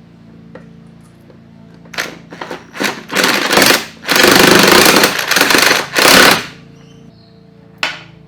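Impact wrench hammering in several bursts, a few short blips and then three longer runs, as bolts are run in; a single sharp click follows near the end.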